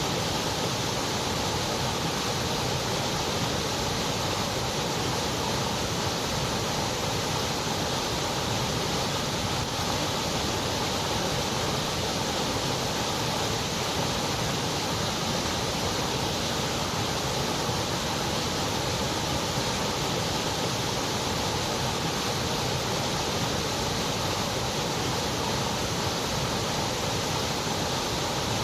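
Steady, unchanging synthetic noise, as played for sleep or to soothe a colicky baby, spread evenly through lows and highs with nothing above the treble cut off.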